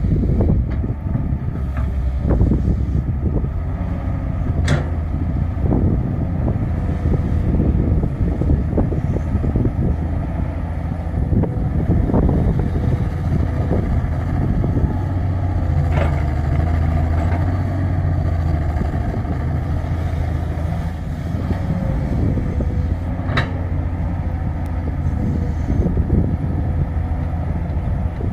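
Hydraulic excavator diesel engine running steadily under load while digging, with three sharp metallic clanks spread through it.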